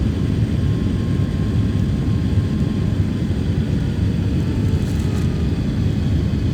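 Jet airliner's takeoff roll heard from inside the cabin: a steady low roar of the engines at takeoff power as the plane speeds down the runway.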